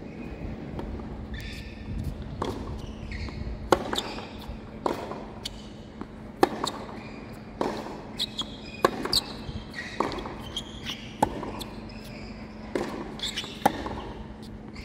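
Tennis groundstroke rally on a hard court: sharp pops of racket strings hitting the ball and the ball bouncing, roughly one a second, with short high squeaks of tennis shoes on the court between the hits.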